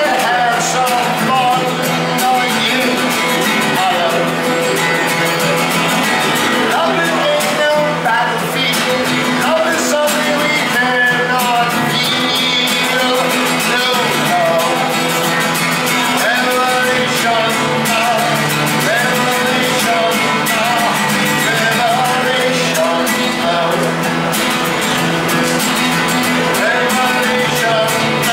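Acoustic guitar played fast and continuously, strummed and picked by a solo street performer.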